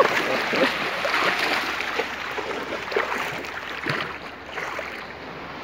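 Knee-deep seawater sloshing and splashing as waves wash around a person wading through it; the noise dies down after about four seconds.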